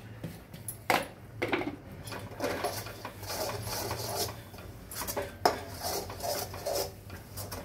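Ladle scraping and knocking against a kadai while stirring a thick coconut and jaggery mixture being cooked down until it draws together. There are sharp knocks about a second in and near five and a half seconds.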